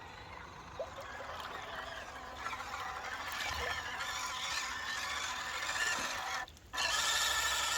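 Whine of the RC crawler's small 180 brushed electric motor and plastic gearbox, a steady high whine with a hiss that grows louder, cutting out briefly about six and a half seconds in and coming back louder.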